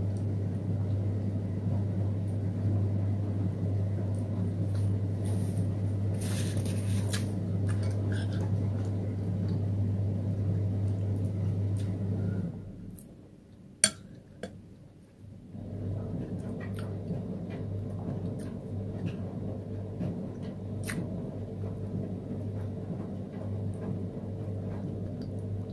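Quiet eating sounds: small scattered taps and clicks of a spoon and fingers on a bowl, over a steady low hum. The hum cuts out for a few seconds about halfway through, where one sharp click stands out, then returns.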